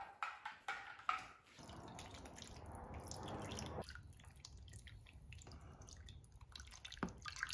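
Blended olive-oil and orange-juice marinade poured from a jug over raw pork chunks in a plastic tub: a steady pour that slackens abruptly about four seconds in, then trickles and drips. A few light clicks come in the first second.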